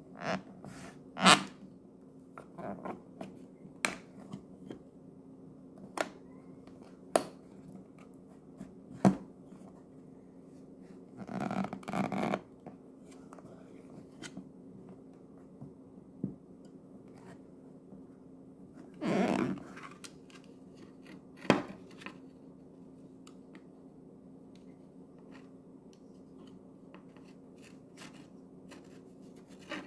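Plastic Play-Doh Fun Factory extruder being worked by hand: scattered sharp plastic clicks and knocks, with two longer rustling scrapes near the middle and about two-thirds through.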